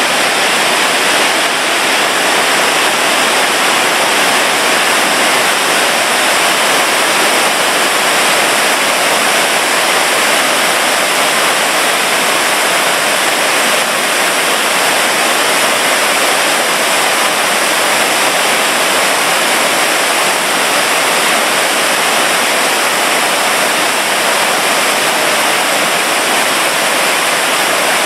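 Waterfall: a loud, steady rush of falling water that does not let up.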